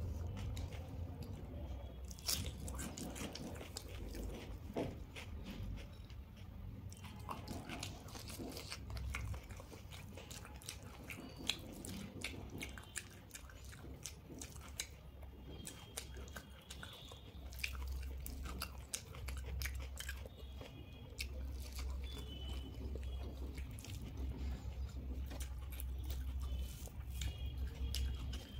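Close-miked eating sounds of a person eating rice, omelette and raw onion by hand: chewing with crunchy bites and many small wet clicks and smacks. A low steady hum lies underneath.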